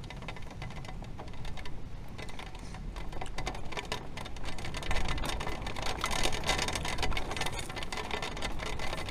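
Rain pattering on an RV's roof and windows, getting heavier as it goes, over a low rumble of wind buffeting the RV at the start of a thunderstorm.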